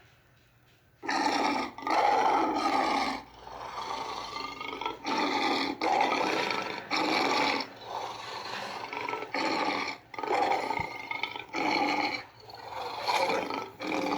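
Custom monster roar sound effect: a string of loud, animal-like roars and growls that starts about a second in, with short pauses between them.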